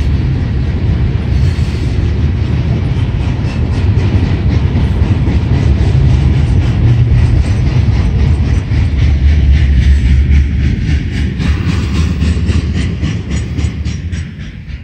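Norfolk Southern freight train of gondola cars rolling past: a heavy, steady rumble with a quick, regular clickety-clack of wheels over the rail joints, fading near the end.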